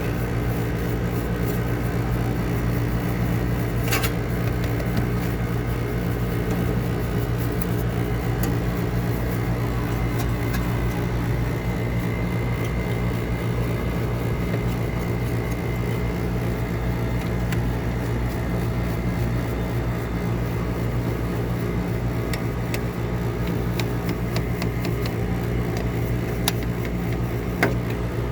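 A machine running steadily with a constant low hum, with a sharp click about four seconds in and another near the end.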